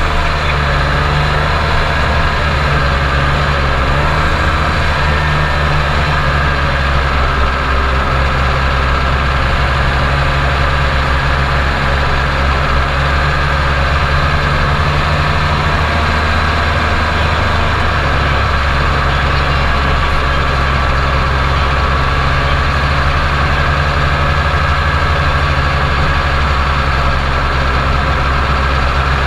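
Snowmobile engine running steadily while the sled is ridden, heard close up from the handlebars.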